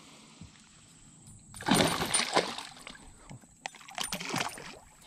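A hooked bowfin thrashing at the surface beside a boat as it is landed by hand, throwing water. After a quiet start there is a burst of splashing about a second and a half in, then a few smaller splashes.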